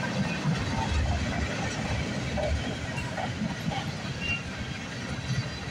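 Tank cars of a freight train rolling past: a steady rumble of steel wheels on the rails.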